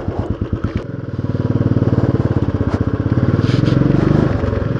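Motorcycle engine running with an even pulsing beat as the bike rides along. The throttle opens about a second in, and the engine then pulls steadily and louder.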